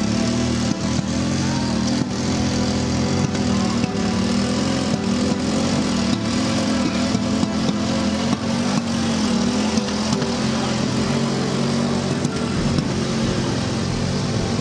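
Motor cargo tricycle's motorcycle-type engine running steadily as the laden tricycle drives off across rough ground.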